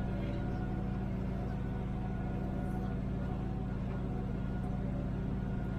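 Hitachi ZAXIS 210W wheeled excavator's diesel engine running at a steady speed, heard from inside the cab as a constant low drone.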